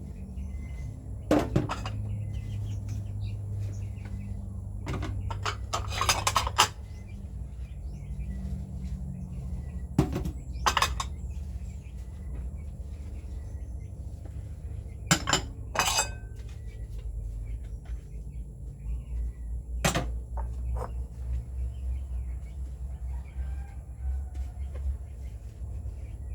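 Kitchenware being handled: intermittent clinks and clatters in short clusters every few seconds, over a steady low hum, with faint bird chirps in the background.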